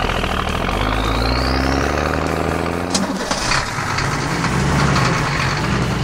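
Cartoon truck engine sound effect: a heavy engine starts and runs with a steady low rumble, with a rising whine over the first two seconds and a sharp click about three seconds in, as the truck pulls away.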